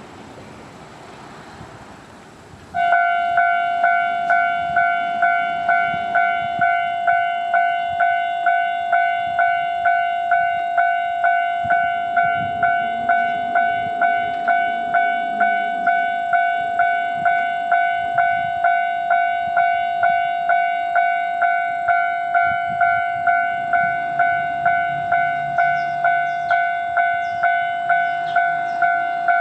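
Japanese railroad crossing warning bell starting up suddenly about three seconds in, then ringing a steady, evenly repeating 'kan-kan' tone, about two strikes a second: the signal that a train is approaching the crossing.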